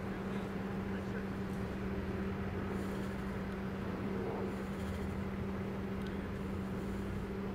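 A steady mechanical hum with a constant low tone, the kind an idling engine or motor makes.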